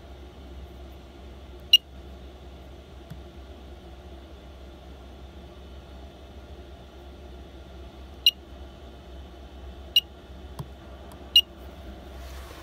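Short electronic beeps from a ventilation controller's touchscreen as its buttons are tapped: one beep about two seconds in, then three more a second or two apart near the end, over a steady low hum.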